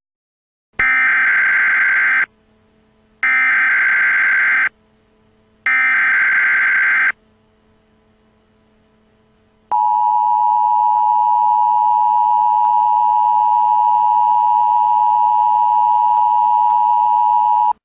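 Emergency Alert System broadcast tones: three harsh digital data bursts (the SAME header), each about a second and a half long, then the long two-tone EAS attention signal (853 and 960 Hz together) held steady for about eight seconds before cutting off abruptly.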